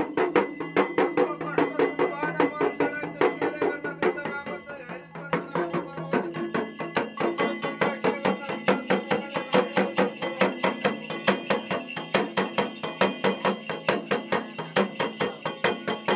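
Nepali jhakri's ritual drum beaten in a fast, even rhythm, with a steady metallic ringing over the beat.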